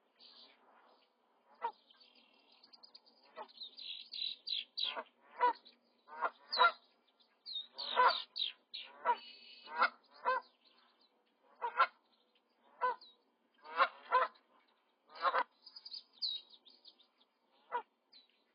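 Adult cranes giving short, repeated honking calls, about a dozen in a row, mixed with the thin, high peeping of young crane chicks while the parents feed them.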